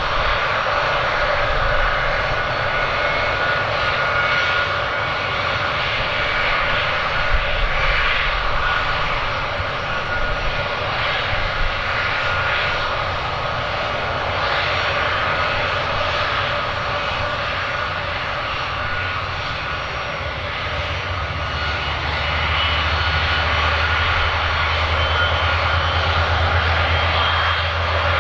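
Aircraft engines running steadily: a whine of several constant tones over a rushing noise, with a low rumble growing stronger about three quarters of the way through.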